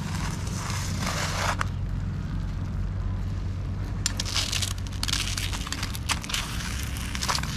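Fire in a burning pile of safety matches crackling, with sharp irregular crackles from about four seconds in over a steady low rumble.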